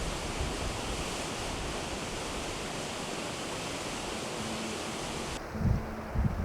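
Rushing river water, a steady full hiss. About five seconds in it cuts off abruptly and gives way to low wind buffeting on the microphone.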